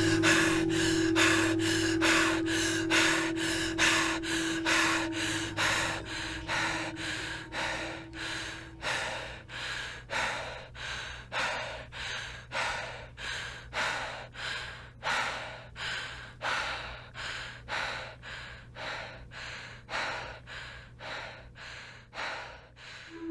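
A person breathing hard and fast, about two breaths a second, slowly growing quieter. A held tone sounds under the breaths at first and fades out about nine seconds in, over a faint low hum.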